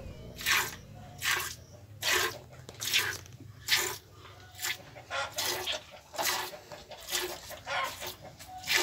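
Hand-milking a cow: jets of milk squirting from the teat into a plastic jug of frothy milk, a short splashy squirt a little more than once a second in a steady rhythm.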